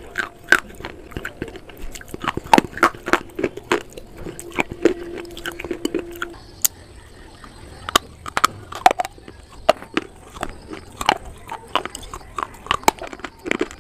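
Close-up crunching and chewing of slate pieces coated in creamy clay paste: sharp, irregular crunches and clicks, several a second, with wet mouth sounds. A faint steady hum sits under the first half.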